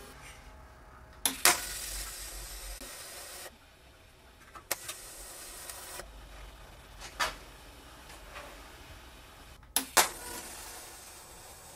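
Electric arc welding of stainless steel to steel: the arc hisses steadily in stretches that start and stop, with sharp clicks about a second in, near the middle and twice near the end.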